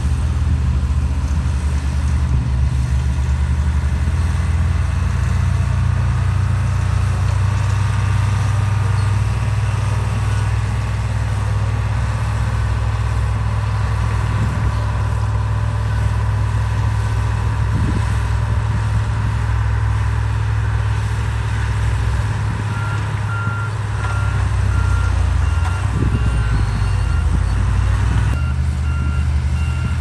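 Heavy diesel construction machinery running with a low, steady engine note; in the last quarter a reverse alarm starts beeping at an even pace over it.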